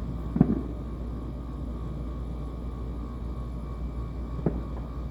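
Two distant fireworks booms, the louder one about half a second in and a sharper one near the end, over a steady low rumble.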